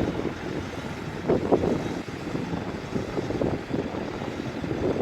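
Heavy diesel earthmoving machinery running with an irregular, rough clatter, briefly louder about one and a half seconds in.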